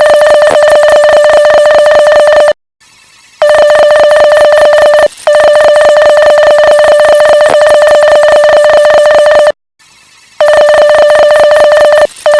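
Loud Morse code tone, a steady beep with a fast flutter. It stops for nearly a second twice, about two and a half and nine and a half seconds in, and breaks briefly twice more.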